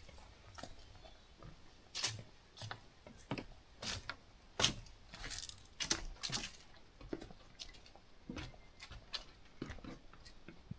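Hiker's footsteps on a mountain trail: irregular crunching and scuffing steps, roughly one or two a second.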